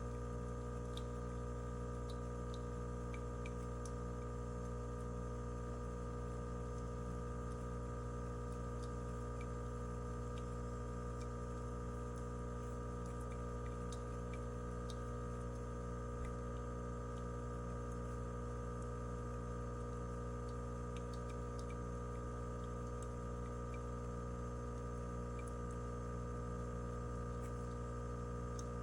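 Steady hum of many held tones, unchanging throughout, with faint scattered ticks above it.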